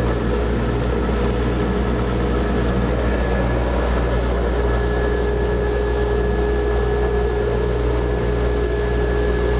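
Homemade CNC router running with its Porter-Cable router spindle whining steadily over a low, even hum from the dust collection drawing through the new dust shoe, while the gantry carries the spindle across the bed. A higher steady tone joins about four seconds in.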